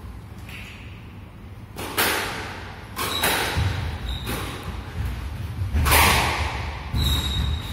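Squash rally: the ball is struck by rackets and smacks off the court walls in sharp, echoing hits, about one a second from about two seconds in. Short high squeaks of court shoes on the wooden floor come between the hits.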